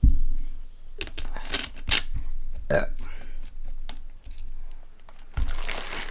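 A woman's short, low burp at the start, followed by a few scattered clicks, then a thump and crinkling packaging near the end.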